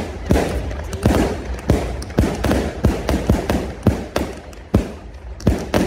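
Aerial fireworks bursting in a rapid, uneven barrage, about two or three sharp bangs a second, each trailing off in a short echo.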